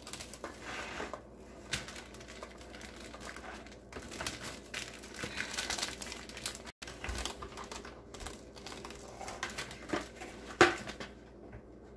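Plastic cling wrap being pulled from its box and stretched over a glass mixing bowl, crinkling and rustling irregularly, with a short sharp sound near the end.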